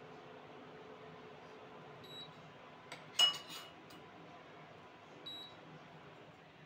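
Kitchen utensils handled at an induction cooktop: a single sharp metallic clink with a brief ring about three seconds in, as against a stainless steel saucepan, and two short electronic beeps from the cooktop's controls, one before and one after it.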